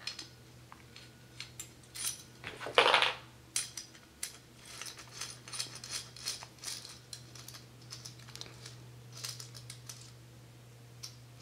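Small metal parts handled by hand: light clicks, taps and scrapes as a stainless steel screw with washers is fitted to a plastic adapter on a metal gooseneck tube and turned with an Allen key. There is a brief louder scrape about three seconds in, over a faint steady hum.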